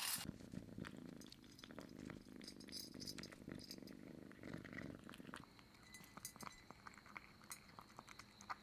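Cat eating dry kibble: faint, irregular crunching clicks as it chews, over a low rumble that fades out about five seconds in.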